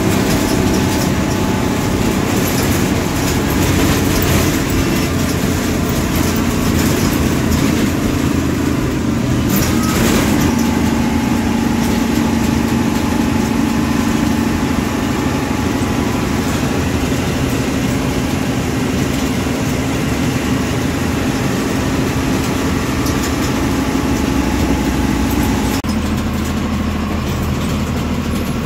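MSRTC bus's diesel engine running under way, heard from inside the bus near the driver's cab as a steady drone with road noise. The engine note shifts about ten seconds in and changes again near the end.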